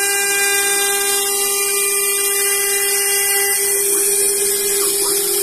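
Cast-iron CNC-4040 milling machine milling aluminium plate with an end mill: a steady high whine with overtones from the spindle and cut, over a steady hiss.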